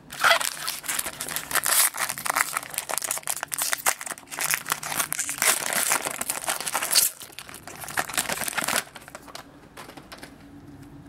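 Foil wrapper of a jumbo pack of 2012 Topps Series 2 baseball cards crinkling as hands pull it open, stopping about nine seconds in.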